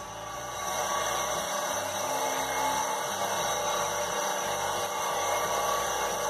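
Homemade wood copy lathe running, its cutter shaving a spinning wooden cylinder as it follows a template: a steady motor whir with cutting noise, louder from about a second in.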